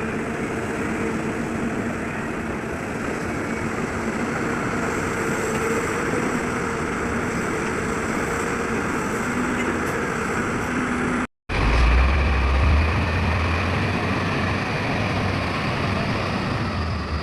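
Heavy diesel engines of an excavator and dump trucks running steadily. About eleven seconds in the sound drops out briefly at a cut, and after it a louder, deeper engine drone.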